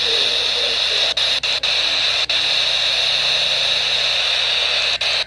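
Steady radio static hiss from a weather radio receiver between alert broadcasts, broken by a few brief dropouts about a second in and again near the end.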